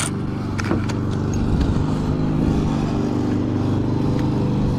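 A motor vehicle engine running at a steady drone in the background. A few light metal clicks from a socket wrench on the car battery's negative terminal come under a second in and again shortly after.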